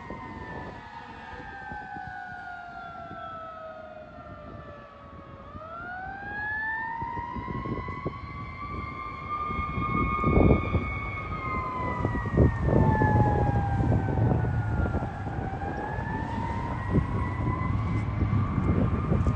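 Fire engine wail siren sliding slowly down and up in pitch, each sweep lasting several seconds. From about halfway through, a rumble of passing road traffic grows louder beneath it.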